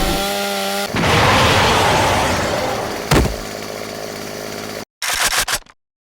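Animation sound effects: a steady pitched buzz that cuts off about a second in, then a noisy blast that fades over about two seconds, a single sharp hit, and choppy stuttering fragments with brief drop-outs near the end.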